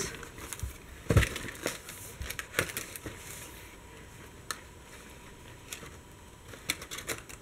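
Stiff card pages and pop-up flaps of a pop-up book rustling and clicking as they are handled and unfolded. The taps are scattered and light, with the loudest about a second in and a quick run of them near the end.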